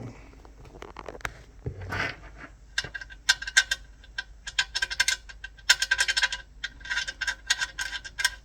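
Small metal bolts clicking and rattling against metal: quick runs of sharp metallic ticks with a faint ringing note, starting about three seconds in.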